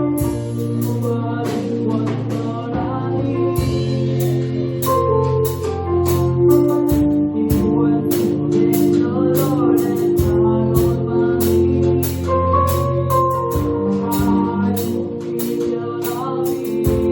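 Gospel choir singing a hymn over sustained organ chords and a drum kit keeping a steady beat.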